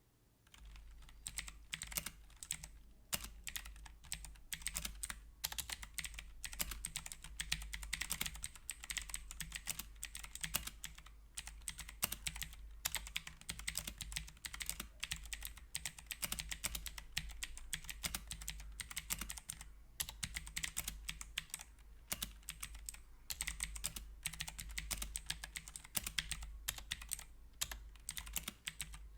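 HyperX Alloy Origins mechanical keyboard with clicky blue switches, typed on quickly and continuously, a dense run of sharp clicks with a few brief pauses. A steady low hum runs underneath.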